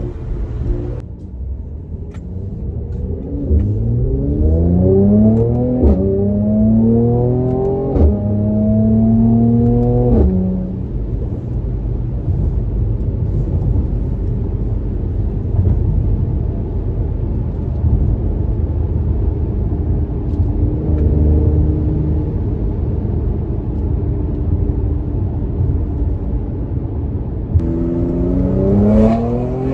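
Mercedes-AMG C43 engine and exhaust heard from inside the cabin, rising in pitch as the car accelerates hard through two upshifts. It then settles to a steady cruising drone with road noise, and starts another rising pull near the end.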